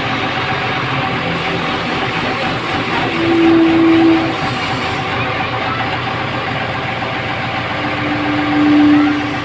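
Backhoe loader's diesel engine running steadily, with two steady tones of about a second each, one about three seconds in and one near the end.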